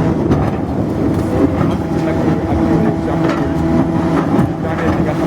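Diesel engine of heavy demolition machinery running steadily with a constant drone.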